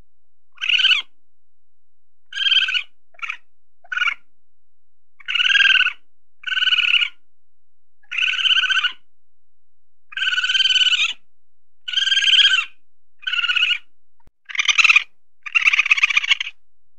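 A weasel giving a series of about a dozen short, high calls at irregular gaps, each with a rapid trill; the last two, near the end, come close together and are louder.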